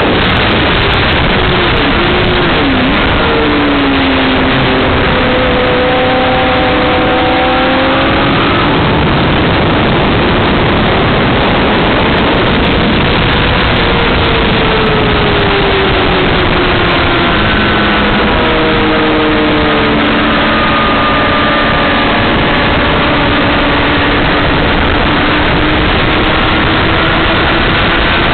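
2007 Honda CBR600RR's inline-four engine revving up and down as the bike is ridden hard on a race track, the pitch rising and falling repeatedly, mostly buried under a loud, steady rush of wind noise on the camera microphone.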